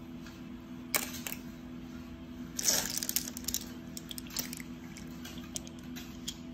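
Snail shells clicking and clattering against each other and a stainless steel bowl as they are handled: scattered single clicks and one short rattle near the middle, over a steady low hum.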